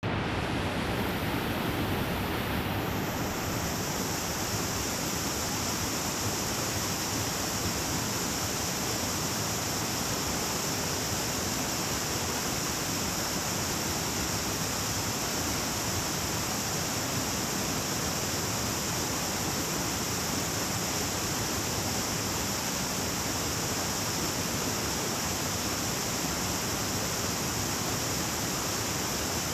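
Small river running over rocks, a steady even rush of water. A steady high hiss comes in about three seconds in and holds.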